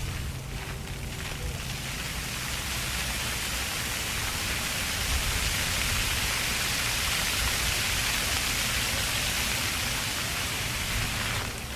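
Water jets of a ground-level splash-pad fountain spraying and splashing onto pavement: a steady hiss that swells over the first couple of seconds, with a low rumble underneath.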